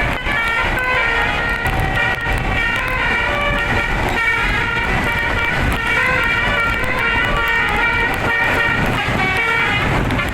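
Indonesian bus 'telolet' multi-horn playing a fast melody of short, stepped notes from a DAV melody module, over a steady low rumble.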